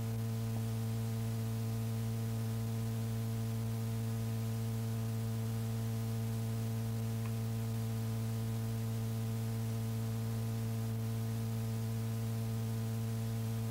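Steady electrical mains hum with a stack of overtones, over faint tape hiss, on an old mono reel-to-reel tape recording.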